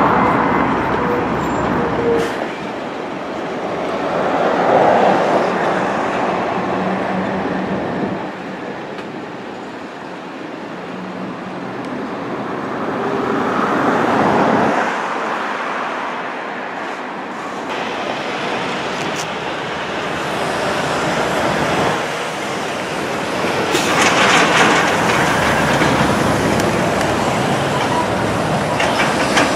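Freight trains rolling by: steel wheels clattering over rail joints and the rumble of the cars, in several short passages that change abruptly. There are a few sharp clicks about three quarters of the way through.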